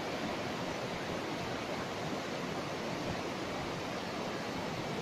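River rapids rushing steadily over rocks: an even, unbroken noise of white water.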